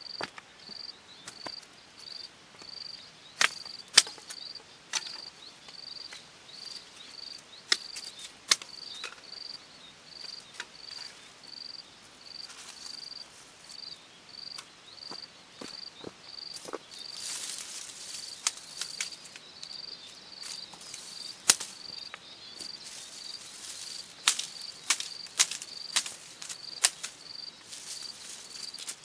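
An insect chirping steadily in an even rhythm, about one and a half high chirps a second, with scattered sharp snaps and clicks over it, a few of them loud.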